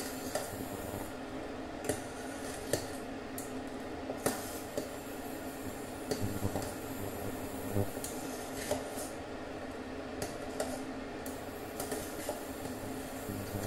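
Metal spoon stirring liquid jaggery syrup and mashed moong dal in a stainless steel saucepan, scraping and clinking against the pan at irregular moments. Underneath runs a steady hum from the running induction cooktop.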